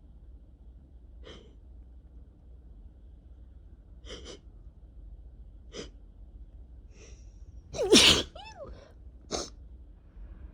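A person's spring-allergy sneeze: a few quiet short breaths, then one loud sneeze with a voiced cry that dips and rises in pitch, followed about a second later by a short sharp breath.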